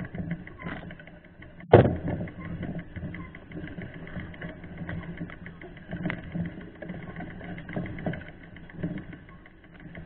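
Mountain bike ridden over a rough grassy trail, heard from a camera mounted near the front wheel: a steady rattling rumble from the bike and mount over the bumps, with scattered knocks, the loudest a sharp knock a little under two seconds in.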